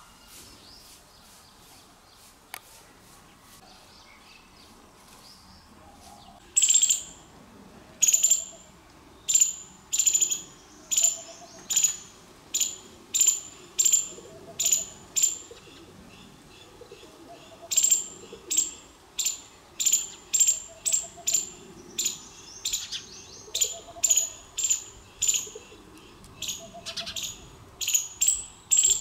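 Loud, sharp chirping calls repeated about once a second, starting about six and a half seconds in and pausing briefly about halfway through; a faint, lower note recurs in the background between them.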